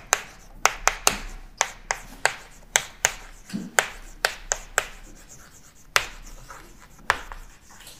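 Chalk writing on a blackboard: a run of sharp taps, two or three a second, with short scratchy strokes between them as the letters are formed, thinning out in the last few seconds.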